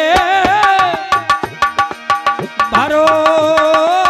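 Live Bundeli khyal folk music: a hand drum playing quick strokes under a wavering, long-held melody line. In the middle stretch the melody gives way to a few steady held chord tones before it returns.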